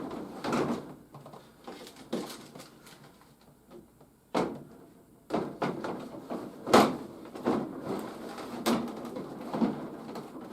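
Irregular knocks and clicks of plastic toy parts and packaging being handled and set down, the loudest knock about seven seconds in.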